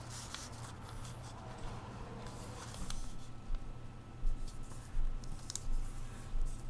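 Notebook paper being folded and creased by hand: soft rustling and scraping, with a few sharper crinkles in the second half, over a steady low hum.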